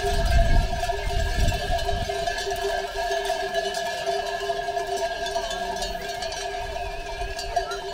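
Many sheep bells on a moving flock ringing together in a steady, continuous jangle. A low rumble sits under the bells in the first second or two.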